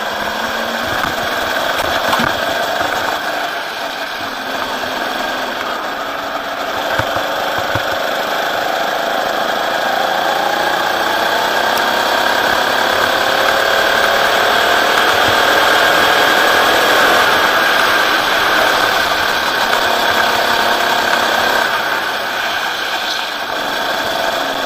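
Rental go-kart engine running under throttle, heard from onboard the kart. Its pitch climbs gradually over several seconds through the middle, then drops back near the end as the kart slows.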